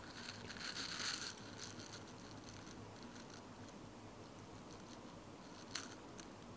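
Faint scratching and light tapping of a stylus writing on a tablet's glass screen, with a sharper tap near the end.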